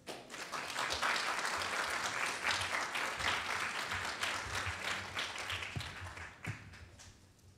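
Audience applauding at the end of a speech. The clapping starts at once, is strongest over the first few seconds and fades away near the end.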